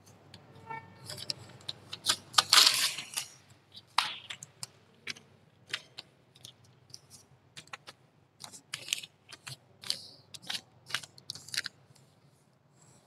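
Cloth duster rubbed across a written board in a series of quick, irregular wiping strokes, erasing marker writing, with a louder rustling stretch about two to three seconds in.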